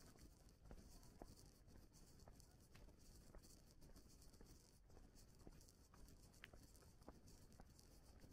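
Near silence, with faint scattered clicks and ticks at no regular spacing.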